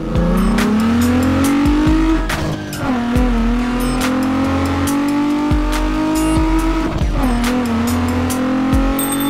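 Race car engine sound effect revving up through the gears: the pitch climbs steadily, drops back at a gear change about two and a half seconds in, climbs again and shifts once more about seven seconds in. Background music with a beat plays underneath.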